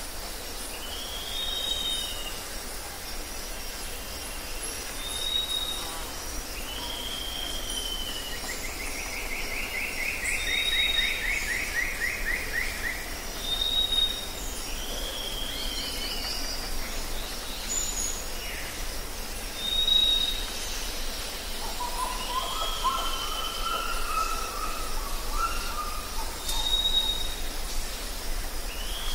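Several birds calling over a steady low hiss: a short high whistle repeated every few seconds, falling whistled phrases, a rapid trill, and a lower run of notes near the end.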